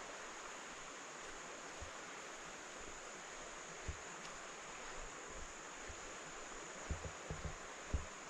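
Faint, steady rush of river water flowing over rocks, with a few short low thumps near the end.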